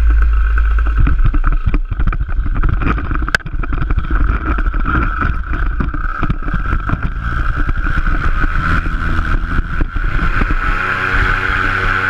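Paramotor engine and propeller running loudly and steadily, with heavy wind rumble and irregular knocks on the body-mounted camera. About ten seconds in the engine note comes through clearer and steadier as the launch run begins.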